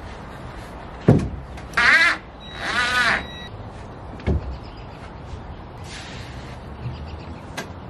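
Plywood hull panel knocking as it is pressed and knelt on over the wooden frame: a sharp knock about a second in and a smaller one a little past four seconds. Between them come two short, harsh calls.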